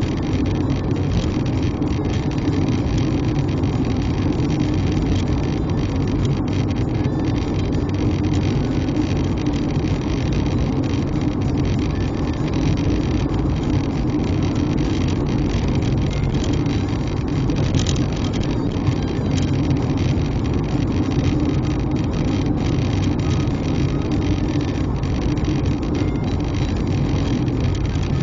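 Steady engine and tyre noise from inside a moving car, as picked up by its dashcam. One brief click comes about two-thirds of the way through.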